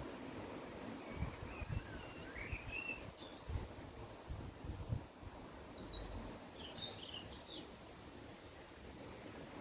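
Songbirds singing short warbling phrases, a lower one about a second in and higher, quicker twittering a few seconds later, over a steady outdoor hiss with gusts of wind rumbling on the microphone.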